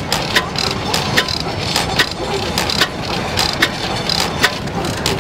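Old single-cylinder stationary engine running slowly, with a sharp click from its valve gear about once every 0.8 s over a steady low mechanical running noise.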